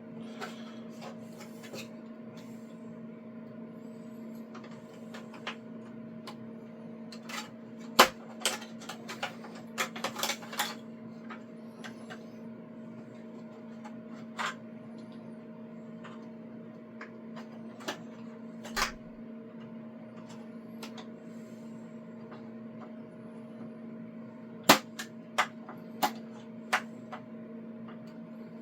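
Sharp plastic clicks and knocks from working a PTFE tube fitting loose from its clasp on a Bambu AMS, coming in a cluster about a third of the way in and a few more near the end, over a steady hum.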